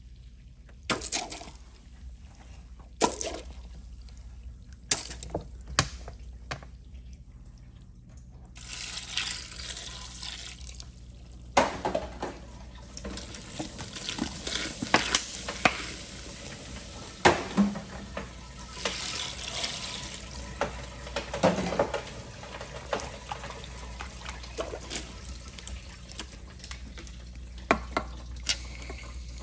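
A few sharp knocks, then a toilet flushing: rushing water from about a third of the way in, with scattered clicks and splashes through it.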